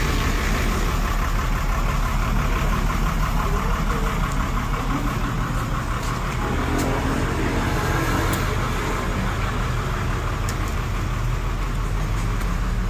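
A motor running with a steady low hum, with a few faint clicks over it.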